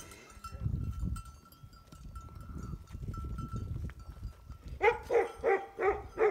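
Wind rumbling on the microphone, then, near the end, a dog barking in a quick run of about five sharp barks.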